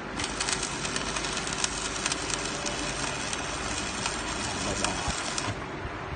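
Electric arc welding: the arc crackles and sputters steadily, striking just after the start and cutting off abruptly about five and a half seconds in.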